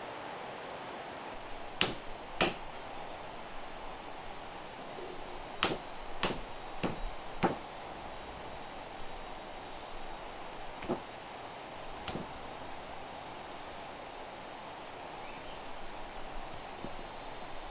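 Sharp knocks of a hand tool striking wood: two about two seconds in, a run of four about half a second apart a few seconds later, then two more spaced out. Underneath runs a steady hiss of running water and a high insect drone.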